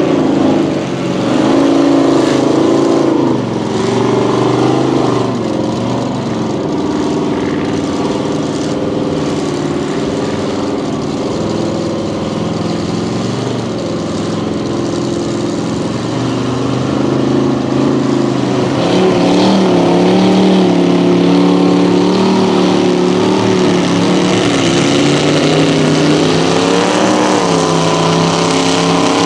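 Big-engine mud-bog trucks revving as they run through a mud pit, the engine pitch rising and falling every few seconds and swelling louder about two-thirds of the way in.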